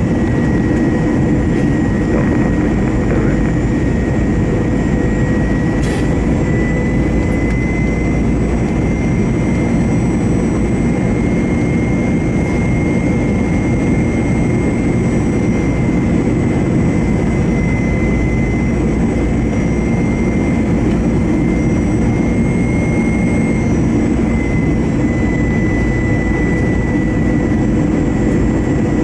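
Airbus A321's CFM56-5B turbofan engines heard from inside the cabin on approach: a steady heavy rumble with a thin high fan whine. The whine rises slightly in pitch a few seconds in as thrust changes, and eases back down near the end.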